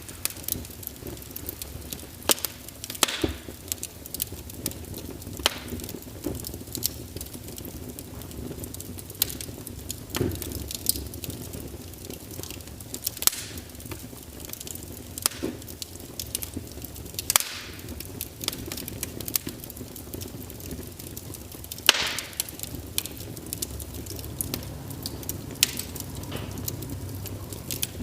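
Wood fire crackling in a fireplace: irregular sharp pops and snaps over a low, steady rumble of flame.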